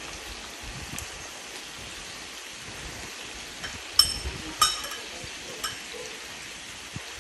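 Beef and vegetables sizzling steadily in a frying pan on a portable gas stove. A few sharp clinks of a utensil against a bowl, the two loudest about four seconds in, half a second apart.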